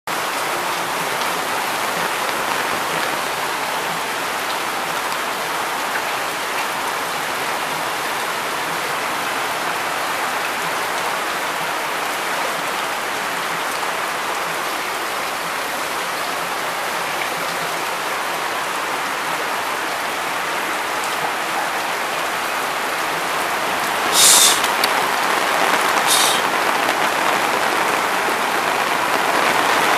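Heavy rain falling steadily on a flooded concrete walkway and puddles. Two short hisses about two seconds apart near the end.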